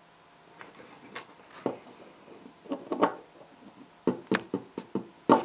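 Small LOZ micro plastic building bricks clicking and knocking as a brick is pressed onto the Pikachu figure and the figure is handled. Scattered sharp clicks start about half a second in, then a quicker run of clicks comes near the end.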